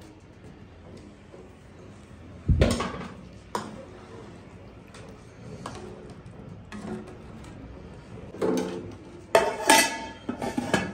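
A long steel slotted ladle stirs rice in a large aluminium cooking pot, knocking against the metal now and then; the loudest knock comes about two and a half seconds in. Near the end the pot's metal lid clanks and rings as it is set in place.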